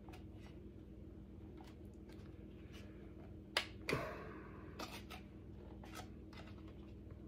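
Light clicks and taps of hard plastic as a small handle is pressed into the tailgate of a WPL C24 RC truck's plastic body. The clicks are scattered, and the two loudest come about three and a half and four seconds in.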